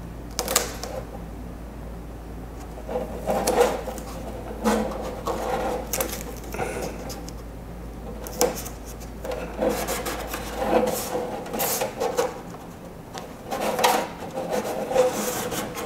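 Blue painter's tape being laid and pressed along a clear plastic RC car body: irregular rubbing and crinkling of the thin plastic shell as it is handled, with short scrapes and taps.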